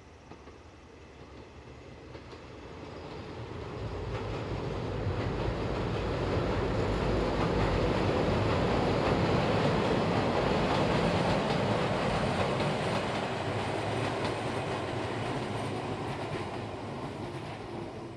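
Izuhakone Railway Daiyuzan Line electric train passing on the track, its running noise building up about three seconds in, loudest through the middle, then fading away near the end.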